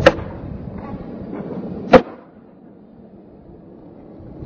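Skateboard on concrete: a sharp clack as the board lands off a ledge just after the start, wheels rolling, then a second sharp smack about two seconds in, after which the rolling noise dies away.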